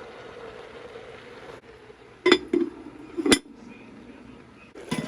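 Kitchenware clanking: three sharp metallic clanks in about a second, then one more near the end, over a steady hum.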